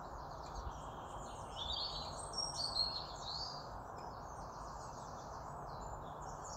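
Birds chirping in short sliding calls, clustered from about a second and a half to three and a half seconds in, over a steady background hiss.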